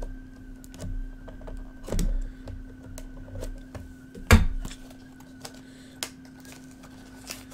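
Hands handling a small cardboard HeroClix booster box: scattered light clicks and taps, with a sharper knock about four seconds in.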